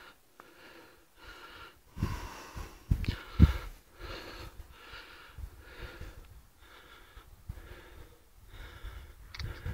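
A person breathing fast and heavily close to the microphone, a breath about every 0.6 seconds. Between about two and three and a half seconds in, a few louder low bumps hit the microphone.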